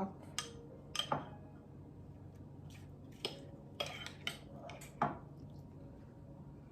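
Utensil clinking and tapping against a bowl and pan while apple topping is spooned on: about six short sharp knocks spread unevenly over the few seconds.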